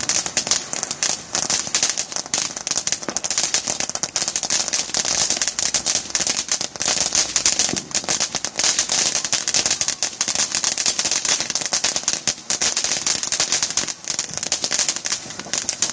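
Ground firework fountain spraying sparks with a steady hiss and dense, nonstop crackling.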